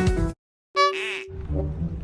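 A mobile phone's music ringtone with a drum beat, cut off abruptly as the call is answered. After a brief gap, a short warbling pitched sound with a held tone follows, then a low steady hum.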